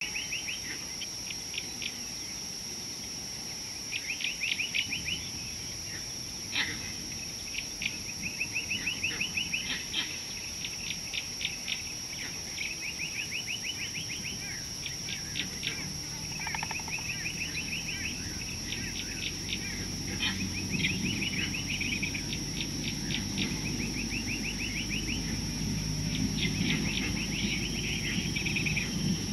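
Outdoor wildlife ambience: bursts of rapid chattering calls every few seconds, over a steady high-pitched whine. A low rumble grows from about halfway through.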